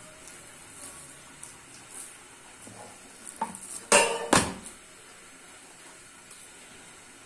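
Metal cookware and utensils clattering in a kitchen: small clinks, then two loud knocks about four seconds in, with a short metallic ring after them.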